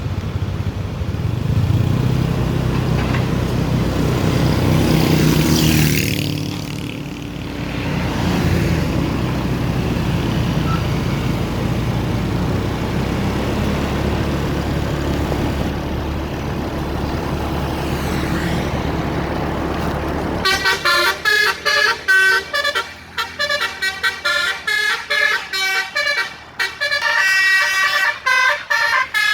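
A tour bus's engine running, swelling in the first few seconds. About twenty seconds in, a basuri telolet horn starts playing a quick melody of short multi-tone horn notes with brief gaps between them.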